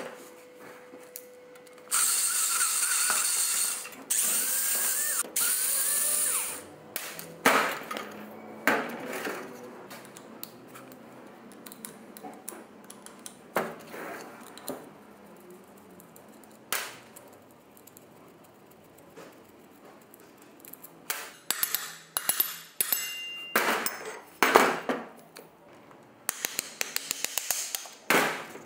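A handheld power tool runs in three short bursts of one to two seconds each, its pitch bending with the load, followed by scattered knocks and a clatter of parts being handled, busiest near the end.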